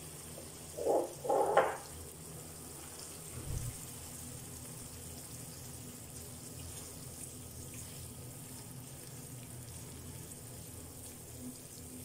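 Chicken pieces sizzling and simmering in a honey, soy and butter sauce in a frying pan on lowered heat while the sauce reduces and thickens, stirred now and then with a silicone spatula. There are two brief louder noises about a second in and a low thump about three and a half seconds in.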